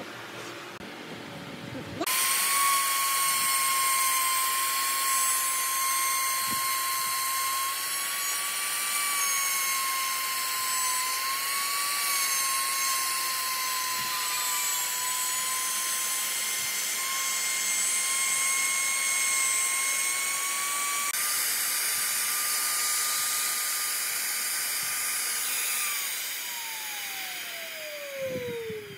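Compact trim router cutting a slot into a round wooden slab: a steady high-pitched whine that starts about two seconds in and wavers slightly as the bit cuts, then falls in pitch near the end as the motor winds down.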